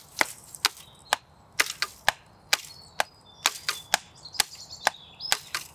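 Wooden sticks knocking on a fallen log in a steady pulse of about two sharp knocks a second, with extra quick strikes added between some of the beats.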